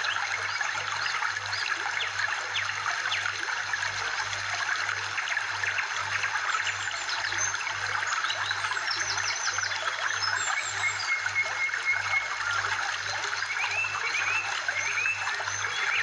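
Trickling water with many short, high chirps over it, and a few longer rising calls near the end.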